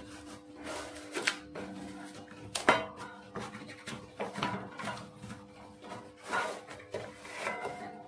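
Knocks, taps and rubbing as boards and sheets are slid onto a manual hardcover roll press and its frame is moved, with a sharp knock about a third of the way in. Two faint steady tones run underneath.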